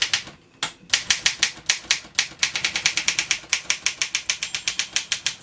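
1935 Olympia Elite portable manual typewriter being typed on rapidly: a fast run of sharp key-and-typebar strikes, about seven a second, after a brief pause near the start.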